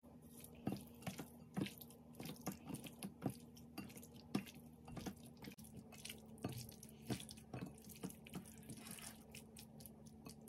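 Raw chicken pieces squelching wetly as a hand mixes them with marinade in a glass bowl: irregular wet clicks and squishes, a few per second.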